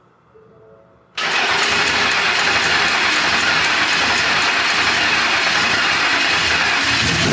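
Twin-turbocharged engine of a 2023 Ford F-150 on its first start-up, catching suddenly about a second in and then running loudly and steadily.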